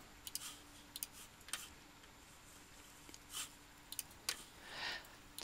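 Faint, scattered clicks of a computer mouse, about ten short clicks at uneven intervals, with a short soft hiss near the end.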